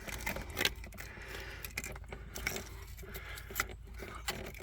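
Scattered small clicks and light metallic rattles of hands working the ABS dummy plug and its wire free of the front hub's dust shield.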